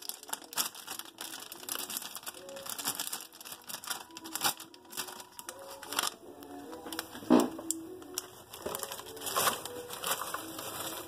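Foil-lined potato chip bag crinkling and crackling as it is pulled open and handled, with chips rattling as they are tipped out of the bag. Irregular crackles throughout, the loudest about seven seconds in.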